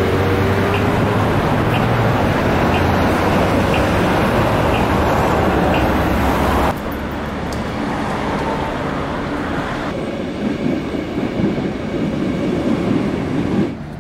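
Rail traffic: a loud, steady rumble of a train running. It drops suddenly about seven seconds in and shifts again near the end. Faint ticks come about once a second in the first half.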